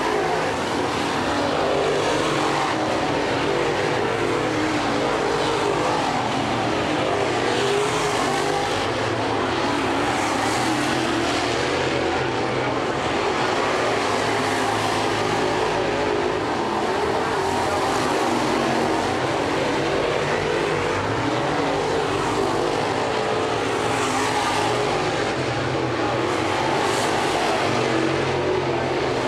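Several crate late model dirt race cars racing at speed, their V8 engines running hard together in a steady, dense engine noise.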